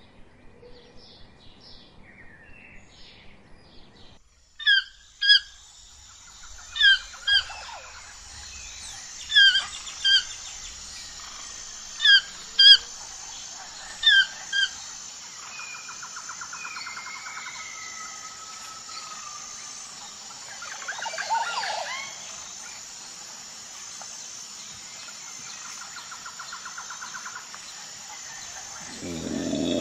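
Keel-billed toucan calling in pairs of short, loud calls, five pairs about two and a half seconds apart, over a steady high drone and softer birdsong. Faint rapid bird chirps come before it, and a low tiger growl starts just before the end.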